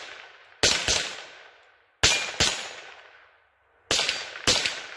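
Rossi RS22 semi-automatic .22 LR rifle firing CCI Stinger hyper-velocity rounds: about seven sharp shots in uneven pairs, each trailing off in a short echo. The blowback action cycles every round without a failure.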